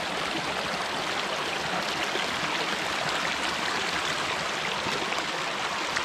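Shallow rocky creek running over stones: a steady, even rush of rippling water.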